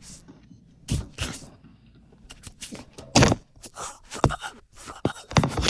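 Knocks, taps and clicks of hard plastic pieces, a Lego model being handled. There is an irregular string of sharp strikes, the loudest about three seconds in.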